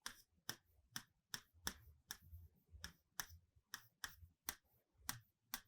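Faint, irregular clicks of a pen writing, about two to three a second, against near silence.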